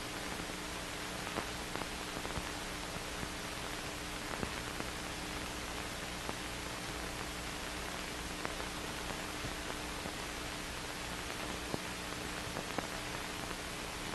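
Steady hiss of an old film soundtrack with a faint hum and scattered small clicks and pops, on a stretch with no narration.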